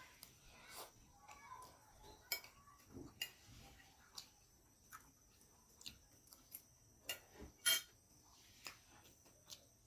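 Sparse light clinks and clicks of a spoon and fork against a plate while eating, the loudest clink about three-quarters of the way through. Faint bird chirps at the start.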